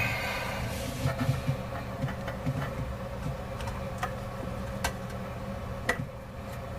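Faucet mounting hardware being handled under a sink: scattered clicks and light knocks as washers and nuts are fitted, with a loud click right at the start. A steady low hum runs underneath.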